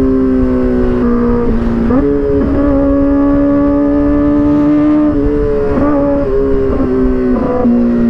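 Kawasaki ZX-4RR's small inline-four engine running hard at high revs while being ridden, over low wind rumble. The note holds fairly steady with several short dips and jumps in pitch: one pair about two seconds in and a cluster in the second half, as gears are shifted.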